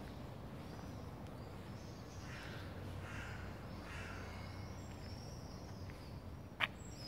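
A crow cawing three times, a harsh call about every second, with thin high chirps of small birds over a steady low background rumble; a single sharp click near the end.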